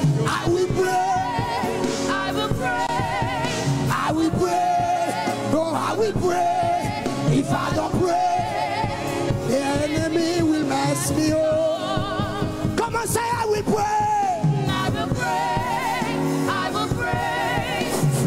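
A live gospel worship song: lead singers on microphones sing with vibrato over instrumental accompaniment and a steady beat.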